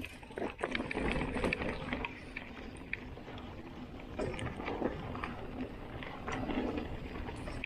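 Mountain bike rolling down a forest trail: tyres crunching over loose stones and dirt, with scattered knocks and rattles from the bike jolting over bumps.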